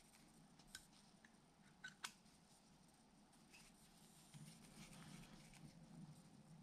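Near silence with a few faint clicks: a hex driver turning the tiny screws of an RC crawler wheel's beadlock ring.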